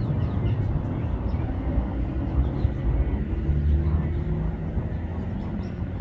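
Steady low outdoor rumble, with faint short high chirps of small birds now and then.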